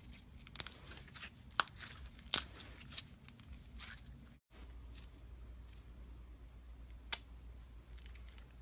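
Slime being pressed and squeezed by hand, giving a few sharp clicking pops, the loudest about two and a half seconds in and one more near the end.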